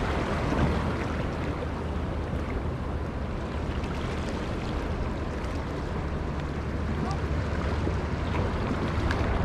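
Steady wind rumble on the microphone over surf washing against rocks.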